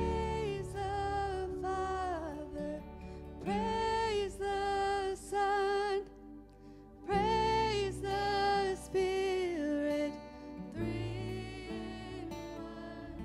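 Live worship band playing and singing: a voice sings held phrases over guitars and bass, with short breaks between lines.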